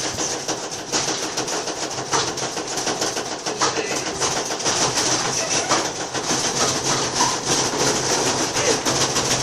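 LG washing machine at full spin, jumping and shaking on the floor with a dense, rapid rattling and knocking that runs without a break.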